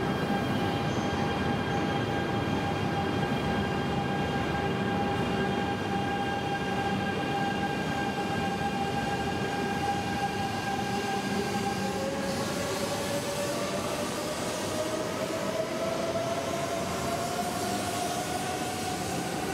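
E926 'East i' Shinkansen inspection train pulling away from the platform, its wheels rolling past. A steady electric whine is heard at first; from about twelve seconds in, the traction motors give a whine that rises in pitch as the train gathers speed.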